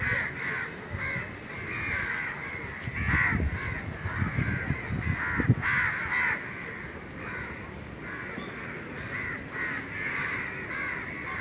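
Many crows cawing, short harsh calls overlapping one after another without a break. Low thumps sound a few seconds in, the loudest about halfway through.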